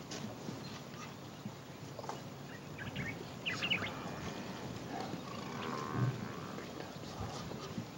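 Outdoor background noise with a few short high chirps about three and a half seconds in and a brief low sound around six seconds.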